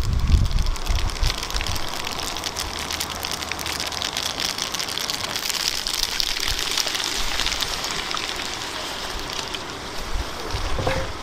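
Spaghetti frying in a hot cast-iron skillet: a dense crackling sizzle that grows brighter about midway as liquid mushroom bouillon is poured into the pan, then eases off near the end.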